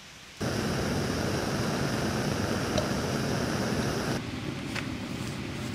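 Backpacking gas canister stove burning under a pot, a steady hissing rush that starts sharply about half a second in and eases a little near the end.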